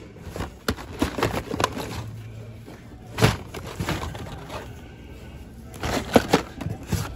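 Carded Hot Wheels cars being handled in a cardboard shipping case: card backs and plastic blisters rustling, scraping and clicking against each other and the box. A sharper knock comes a little after three seconds and a cluster of clicks near six seconds.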